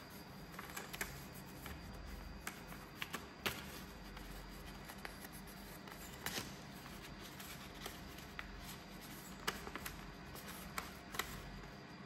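A sheet of paper being folded and creased by hand: scattered crisp crinkles and taps, the loudest about three and a half seconds in, over a steady low hum.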